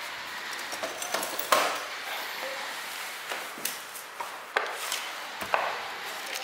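Scattered knocks and clicks of hands handling wires and an aluminium-cased motor controller on a wooden workbench, the sharpest knock about one and a half seconds in and several lighter ones later.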